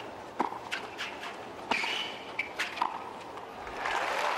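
A tennis rally on a hard court: sharp strikes of racket on ball a second or so apart, with brief shoe squeaks between them. Near the end the crowd breaks into applause as the point ends.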